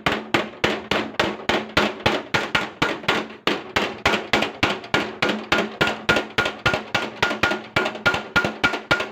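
Hammer beating sheet metal of a car door panel in a fast, steady rhythm of about four to five blows a second. A faint metallic ring joins the blows from about six seconds in.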